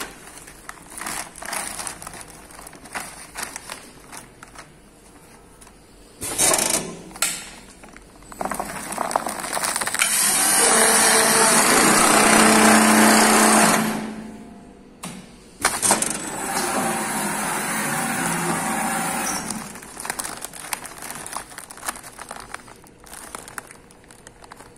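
Sewing head of an automatic one-loop big bag sewing machine running in two steady stretches, stitching a loop strap onto the bag: a long, louder run from about eight seconds in, then a shorter one after a brief pause. Before and after, the woven bag fabric rustles and crackles as it is handled, with a couple of knocks.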